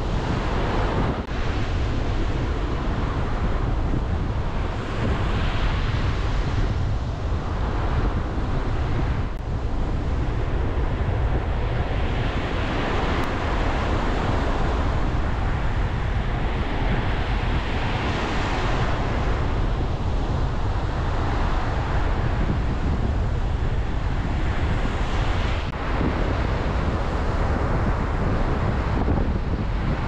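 Strong storm wind buffeting the microphone with a steady low rumble, over heavy storm surf breaking on a beach. The hiss of the breaking waves swells and eases every few seconds.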